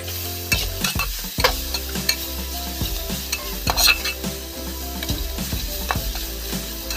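Shredded carrot and cabbage being stir-fried in a steel pan: a metal spatula scraping and knocking against the pan again and again, over a steady sizzle.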